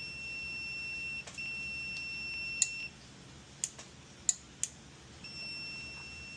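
Multimeter continuity tester beeping with a steady high tone across a dryer control-board relay's contacts. The beep breaks off briefly about a second in, stops around three seconds, and starts again near the end, with a few sharp clicks in the gap. The beep means the contacts are closed and the relay tests good.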